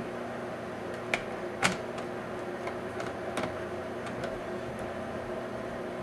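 A few light, sharp clicks of a screwdriver and a small screw being handled while an optical drive is screwed into a small computer case. Under them runs a steady hum.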